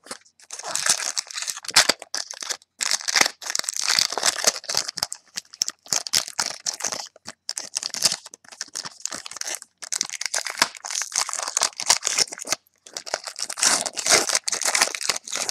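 Foil wrapper of a football trading-card pack crinkling and tearing as it is worked open by hand: a run of crackly rustles broken by a few brief pauses.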